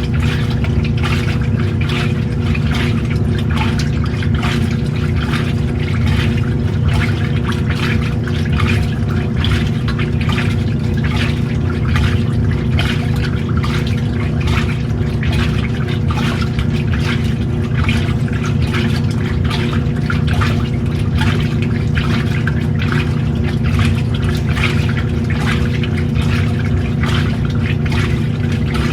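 Washing machine running a wash: a steady motor hum under continual sloshing and splashing of water.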